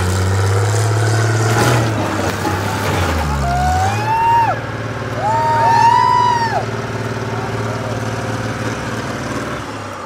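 Road roller's diesel engine running steadily, its note dropping and picking up again about three seconds in. Two short high, rising-and-falling squeals sound over it in the middle.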